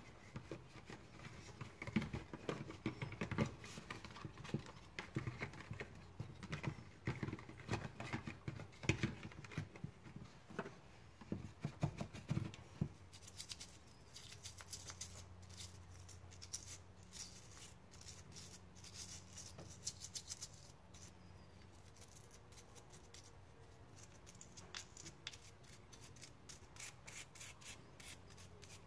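Small oily engine parts being handled and wiped by hand: irregular light knocks, clatter and rubbing for the first half, then quick light scratching ticks. A low steady hum comes in about halfway.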